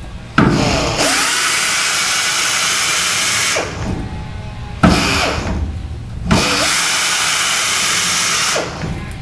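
Pneumatic air chisel hammering through the sheet-metal spot welds of a car's rear quarter panel, unmuffled and loud. It runs in two long bursts of a couple of seconds each, with short sharp blasts before and between them.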